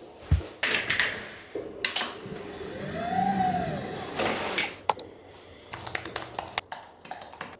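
Desk and office sounds: scattered knocks and clicks, then an office chair creaking as someone sits, with a squeak that rises and falls. Near the end comes a quick run of keyboard taps as a login password is typed.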